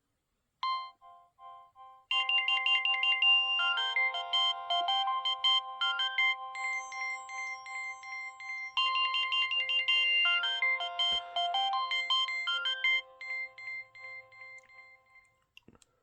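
A Nokia 6030 ringtone playing. A few separate notes come about half a second in, then from about two seconds a busy tune with several notes at once, whose phrase starts over about halfway through and dies away near the end.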